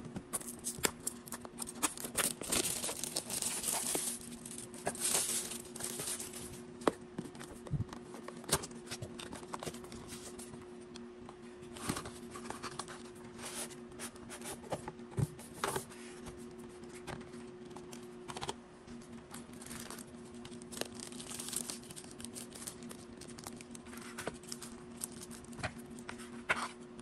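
Cardboard packaging and paper wrapping being handled: bursts of paper rustling and crinkling with many short clicks and taps of cardboard sliding and knocking, over a steady low hum.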